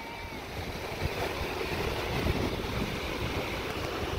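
Ocean surf washing onto a sandy shore, with wind buffeting the microphone; a steady wash that grows a little louder about a second in.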